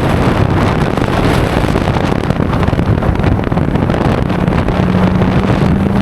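BMW E92 M3's S65 V8 engine running while driving, under heavy wind and road noise. A steady engine tone comes through about four seconds in.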